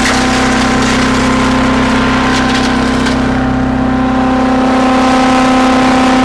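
Earthquake wood chipper's small gas engine running at a steady speed, with a few sharp clatters about two to three seconds in.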